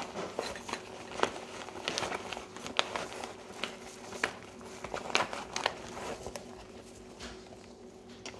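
A hand rummaging inside a nylon tactical backpack: fabric rustling and crinkling with scattered small clicks and taps, thinning out toward the end.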